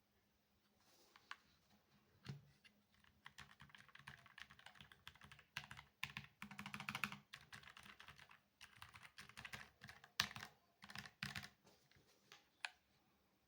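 Typing on a Keychron K3 Max low-profile mechanical keyboard with red linear switches. A few single keystrokes come first, then quick runs of key clicks for most of the stretch, thinning to a last couple of strikes near the end.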